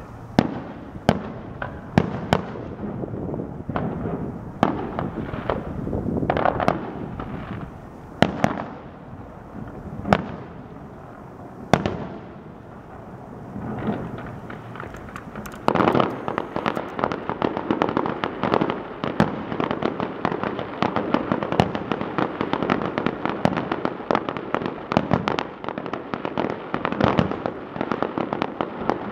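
Fireworks display: aerial shells bursting with sharp bangs every second or two. About halfway through, this turns into a dense run of rapid pops and cracks that keeps going.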